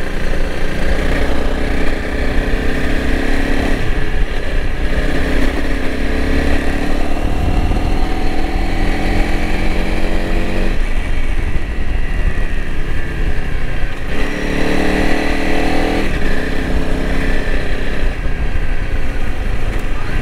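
2021 Honda CRF300L Rally's single-cylinder four-stroke engine running under way, its pitch climbing steadily with the throttle and dropping sharply about halfway through, then climbing again. Underneath is a steady low rumble of wind and tyres on gravel.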